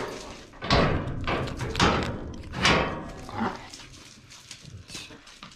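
A dog barking: three loud barks about a second apart, then a couple of fainter ones.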